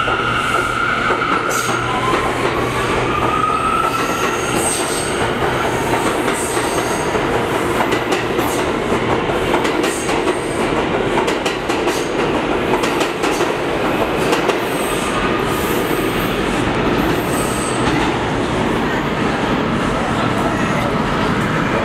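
New York City Subway R179 train running past the platform and out into the tunnel. Its wheels clatter over the rail joints, with short high wheel squeals, and a motor whine rises in pitch during the first few seconds.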